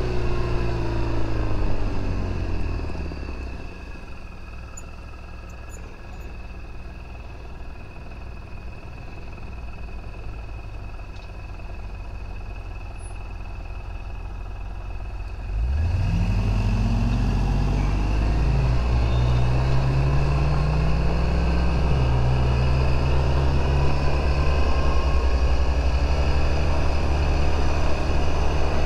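Suzuki Burgman 650 scooter's parallel-twin engine slowing to a stop, its note falling, then idling quietly. About sixteen seconds in it revs up as the scooter pulls away, the note rising in sweeps before settling into a steady run at cruising speed.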